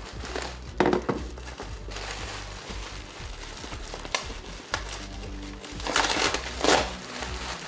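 Packaging crinkling in a few short bursts as a motorcycle docking hardware kit is unwrapped, the loudest near the end, over steady background music.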